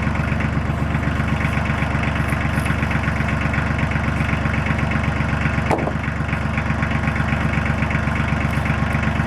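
Tractor engine idling steadily while it warms up, with one short knock about six seconds in.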